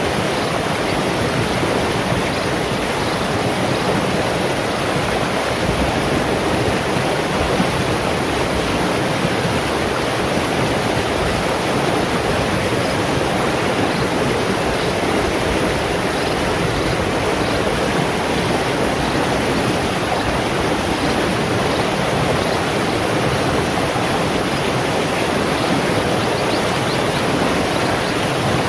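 Shallow stream rushing and splashing over rocks and boulders, a steady, unbroken flow of water.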